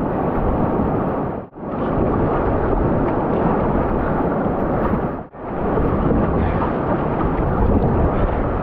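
Rushing whitewater of a river rapid, a loud, steady rush of noise with no tone in it, heard close on a kayaker's microphone. It drops out briefly about a second and a half in and again past five seconds, where one clip cuts to the next.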